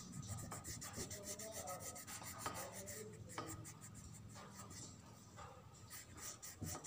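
Crayon rubbing on paper, colouring in with quick back-and-forth strokes, several a second, easing off in the middle and picking up again near the end.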